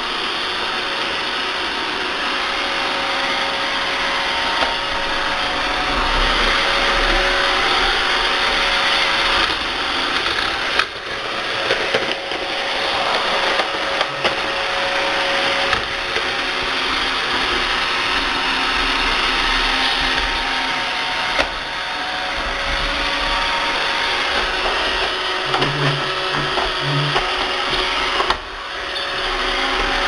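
iRobot Roomba 675 robot vacuum running: a steady whirring of its suction motor and brushes with a faint constant hum, broken now and then by short knocks and brief dips.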